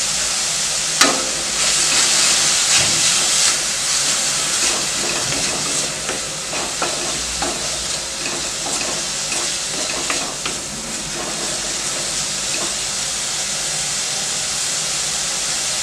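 Chopped onions with curry leaves sizzling in hot oil in a stainless steel kadai. A wooden spatula stirs them, scraping and tapping the pan with scattered clicks through the first ten seconds or so, and then the sizzle goes on steadily.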